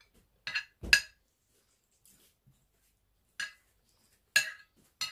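Metal spoon scraping and clinking against a ceramic dinner plate while cutting and scooping food, in a few short separate strokes; the loudest, about a second in, lands with a dull knock.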